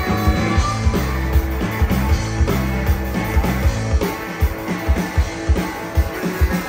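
Live rock band playing an instrumental passage: electric guitars, bass and drums on a steady beat. The deep bass drops away for a couple of seconds after the middle and comes back near the end.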